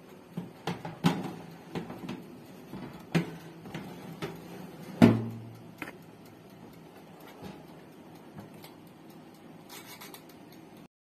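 Metal baking tray and oven rack clattering and knocking as a tray of buns is loaded into a countertop electric oven, with the loudest clank about five seconds in, then quieter handling noise.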